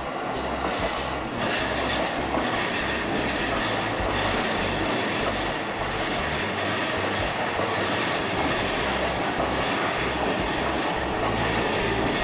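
A JR Ome Line train passing close by with a steady rumble, its wheels clacking over the rail joints.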